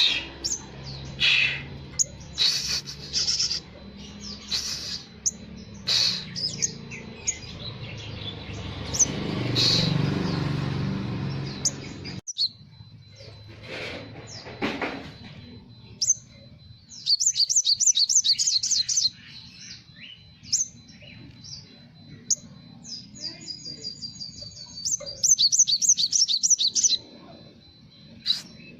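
Olive-backed sunbird (sriganti) singing: sharp high chirps and rapid trilled runs, with two long fast trills in the second half. Over the first part a low rumble of background noise runs under the song.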